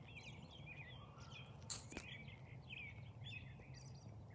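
Faint chirping of small songbirds, many short squiggly calls over a low steady background rumble, with a single sharp click a little under two seconds in.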